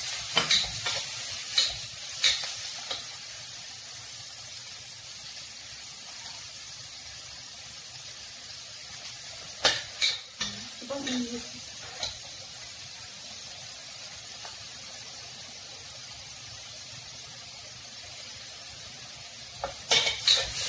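Pork and garlic frying in a hot wok, with a steady sizzle. A metal spatula scrapes and clinks against the wok as the meat is stirred: several times in the first few seconds, in a cluster around ten seconds in, and again near the end.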